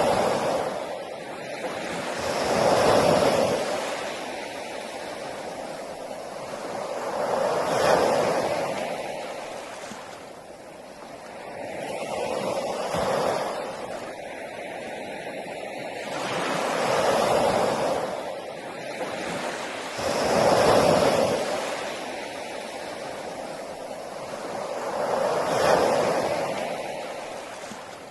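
Sea waves breaking on a beach, the surf swelling up and washing back in slow surges about every four to five seconds.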